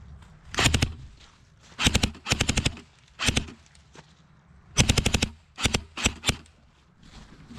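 Airsoft gun firing several short bursts of rapid shots, each burst lasting well under half a second, with brief pauses between them.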